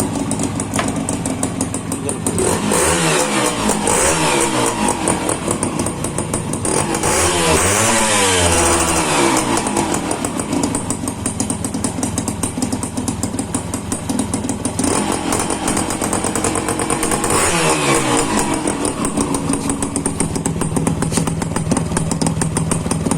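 1992 Honda CDI motorcycle engine running, with the throttle blipped a few times so the revs rise and fall: briefly about three seconds in, more strongly around eight seconds, and again around seventeen seconds.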